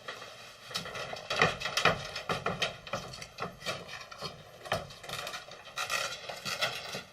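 Irregular light taps and scrapes, a few each second, some louder than others.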